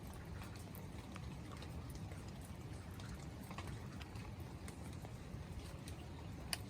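Rain falling, with scattered drops ticking irregularly over a steady low rumble; one sharper drop or tick near the end.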